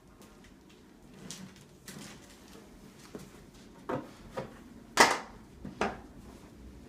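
Chiropractic adjusting table knocking under a knee adjustment: a run of short knocks, four louder ones in the second half, the loudest about five seconds in.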